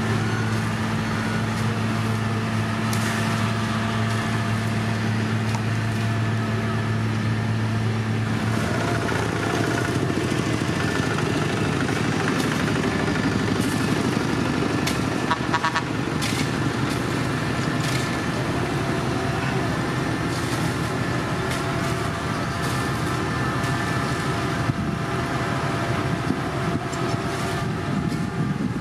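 Road-paving machinery running steadily: the diesel engines of an asphalt paver and a dump truck feeding it. A low, steady engine hum drops away about eight seconds in, leaving the general machine noise.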